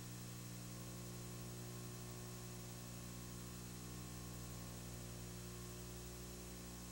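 Steady low electrical hum with hiss on the recording, unchanging, with no other sound.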